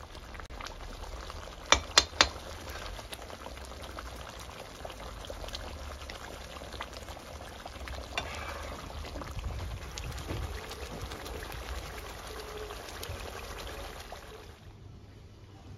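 Thick onion-tomato masala bubbling and spluttering in an iron wok, stirred with a ladle. Three sharp knocks come quickly one after another about two seconds in.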